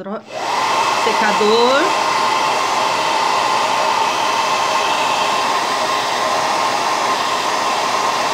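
A handheld hair dryer is switched on just after the start and runs steadily, a rushing hum with a steady whine. It is blowing on wet acrylic paint to dry it only partly.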